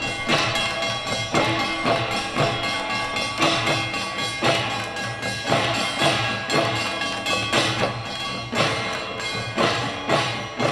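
Korean pungmul percussion: a troupe of drummers playing drums worn across the body, with strong accented beats about once a second over busier drumming and ringing tones above.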